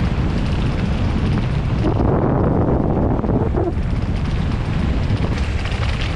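Mountain bike rolling fast over a dirt and gravel track: steady wind rush on the microphone, with tyre crunch and short rattles and knocks as the bike bounces over the stones.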